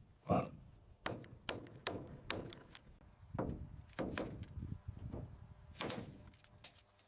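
An irregular series of about a dozen knocks and thuds on wood, like timber being chopped or struck with hand tools.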